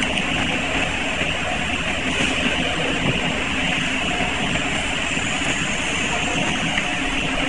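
Steady machinery noise of a factory workshop: a continuous even rushing din with no distinct strokes or rhythm.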